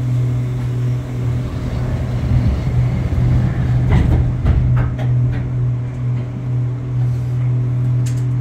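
Poma-Otis Hovair people mover car heard from inside the cabin: a steady low hum and rumble of the car running, with several sharp clicks and knocks about four to five seconds in and again near the end.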